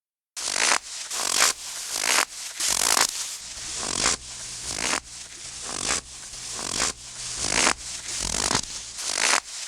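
Footsteps crunching through snow at a steady walking pace, about one step a second, starting a third of a second in after a moment of silence.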